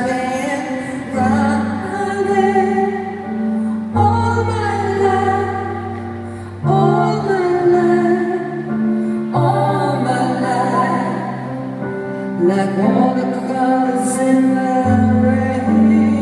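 Live pop ballad: a female lead singer sings over a soft band accompaniment with long held low notes.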